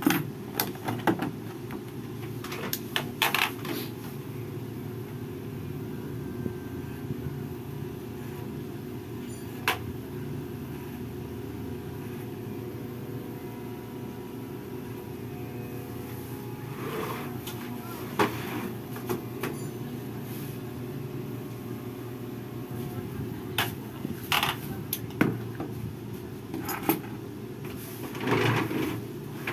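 Corded electric hair clipper running with a steady buzz, with scattered short clicks and taps from the comb and clippers handled at the head.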